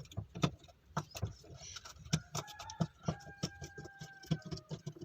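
Phillips screwdriver turning a bolt out of a washing machine's centre, with irregular small clicks and metal scrapes. A faint high tone is held for about two seconds in the middle.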